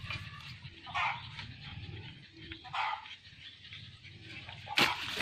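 Dog barking: three short barks about two seconds apart, the last the loudest.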